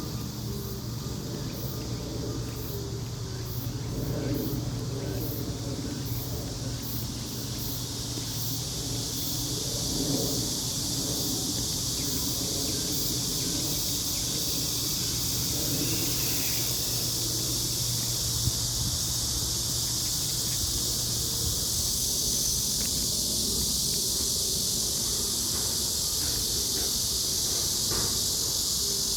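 A steady, high-pitched insect chorus that grows fuller about eight seconds in, over a low, steady hum.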